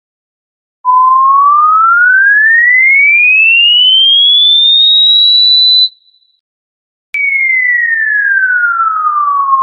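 Whistle sound effects, each a single pure whistling tone. The first glides slowly upward for about five seconds and stops. After a short pause, a second starts with a click and slides downward like a falling whistle.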